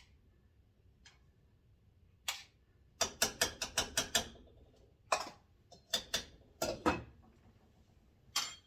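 Clicks and taps of a utensil against a pot and container while cooked pinto beans are dished out: a quick run of about eight clicks around three seconds in, then scattered single taps.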